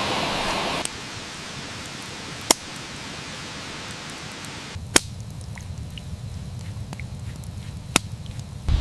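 A steady hiss cuts off abruptly under a second in. After it, a wood campfire pops sharply three times, a few seconds apart, over a low rumble that sets in about halfway.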